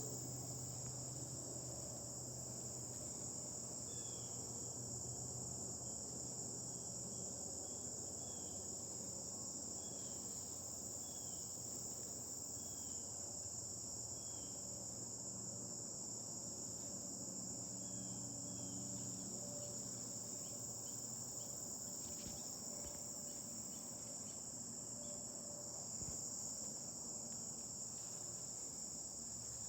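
Steady, high-pitched chorus of insects, with a fainter short chirp repeating about once a second through much of it.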